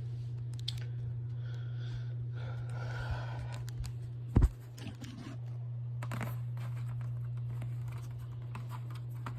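Handling noise: light scratching and tapping as the box fan is handled, with one sharp knock about four and a half seconds in, over a steady low hum.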